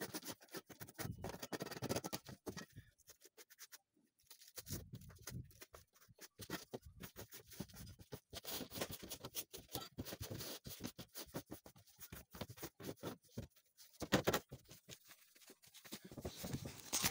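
Old bitumen roofing felt being scraped and torn off a roof by hand: irregular scratching and scraping, with a short pause about three seconds in.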